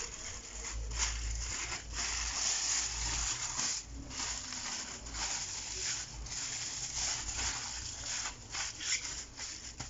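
Aluminium foil crinkling and rustling as it is wrapped and pressed around a food roll, in an almost unbroken run with a few brief pauses.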